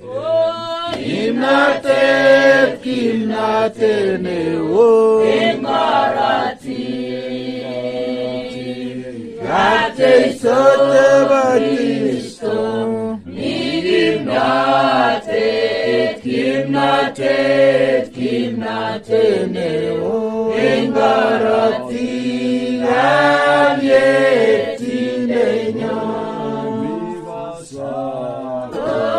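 A gospel song sung by a group of voices in a choir style. The melody moves continuously over a steady sustained accompaniment underneath.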